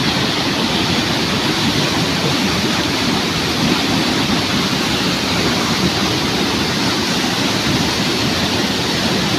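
Waterfall in full flow: a loud, steady rush of falling water.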